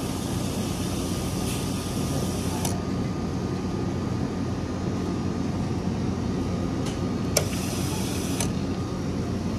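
Self-serve soda fountain pouring into a paper cup: a steady hiss over a low hum, with a few sharp clicks from the dispenser, the loudest about seven seconds in.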